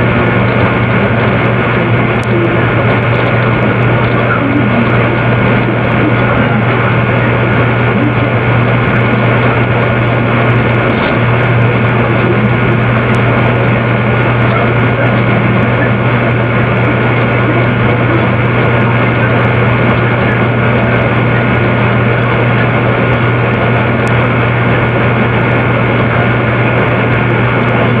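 A steady, loud droning hum: a constant low tone under an even, dense wash of noise that does not change.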